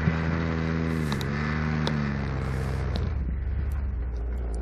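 Paramotor engine running, its speed rising and falling a couple of times as the throttle is worked, then dropping away about three seconds in as the pilot throttles back for an emergency landing.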